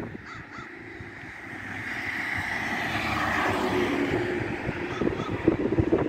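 A car passing on a road bridge, its tyre noise swelling over the first few seconds and staying up. Two short crow caws sound near the start.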